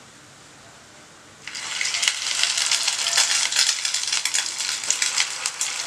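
Hot cooking oil breaking into a dense, crackling sizzle about a second and a half in, as a chicken bread roll goes into the pan to deep-fry.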